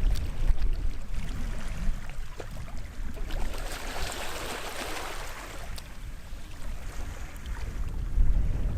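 Small waves lapping on the shore of a sheltered bay. One wash swells and fades about midway. A low rumble runs underneath and is loudest at the start and near the end.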